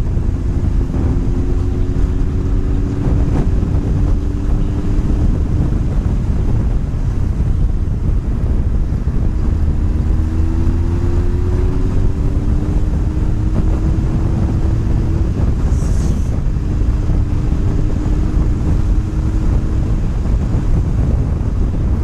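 Riding noise from a motorcycle on the move: heavy wind rush on the microphone and road rumble, with the engine's note rising slowly in three stretches as it pulls.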